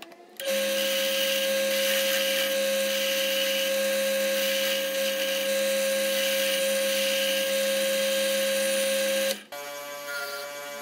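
Benchtop drill press spinning a sanding drum, with a peroba rosa wooden knife scale pressed against it: a steady motor whine with the hiss of sanding. Near the end it gives way abruptly to the quieter, steady hum of a homemade bench wheel's electric motor.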